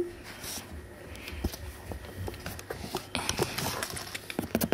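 Burmese kittens moving about inside a cardboard box: scattered light taps, scratches and rustles of paws on the cardboard and soft bedding.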